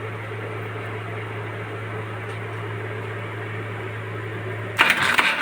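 A steady low hum, then near the end the Suzuki F6A three-cylinder engine cranks and catches with a sudden loud rise. It starts promptly, no longer hard-starting after the timing adjustment.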